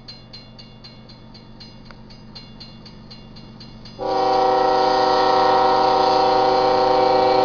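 Railroad grade-crossing bell ringing steadily, then about four seconds in a locomotive air horn sounds one long, loud blast, a chord of several notes, over it.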